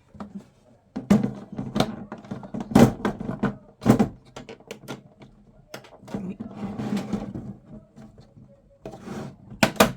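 Knocks, taps and clicks of a plastic floss storage box being handled and pried open, with a stretch of rustling packaging in the middle; the box is closed tightly and resists opening.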